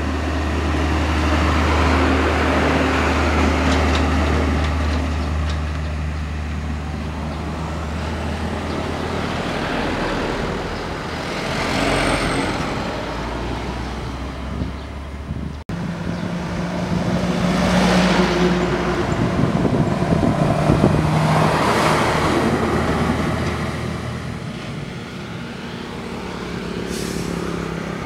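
Heavy diesel trucks driving past one after another with tyre noise: first a Hino 500 dump truck with a steady low engine hum, then more trucks and cars going by. The sound breaks off for an instant about halfway through.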